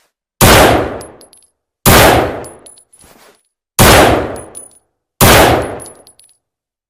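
Heckler & Koch MP5A4 9 mm submachine gun firing four short bursts, evenly spaced about a second and a half apart. Each burst rings off over about a second, followed by light metallic pings.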